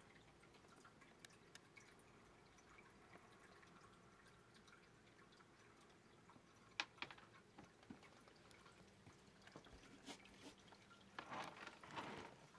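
Near silence: room tone with a few faint sharp clicks, and a brief patch of soft rustling and clicking near the end.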